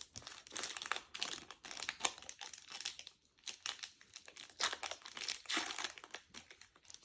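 Plastic wrapper of a hockey card pack crinkling and tearing as it is ripped open, a dense run of irregular crackles with a short pause partway through.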